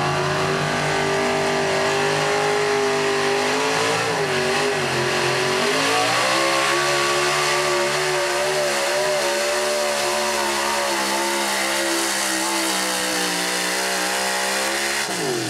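Lifted Dodge pickup's engine running hard at high revs while pulling a weight-transfer sled. The revs climb about five seconds in, hold high with a slight waver under load, then drop sharply at the end as the truck stops.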